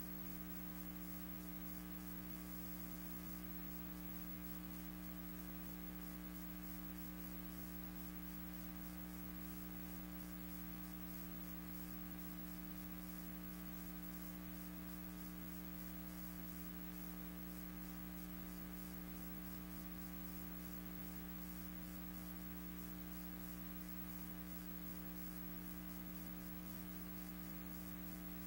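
Steady electrical hum with a light hiss and no other sound: the background noise of a silent archival film transfer.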